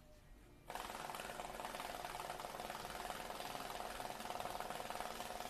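Banknote counting machine running a stack of bills through: a steady, fast mechanical flutter and whir that starts suddenly just under a second in.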